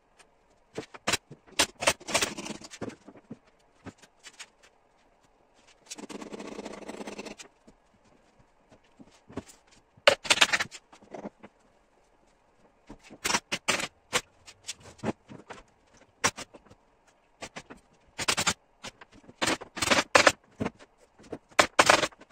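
Pneumatic upholstery staple gun firing staples into a recliner's frame: irregular sharp shots, some in quick runs, with knocks and handling of the chair between them. About six seconds in there is a rasping noise lasting about a second and a half.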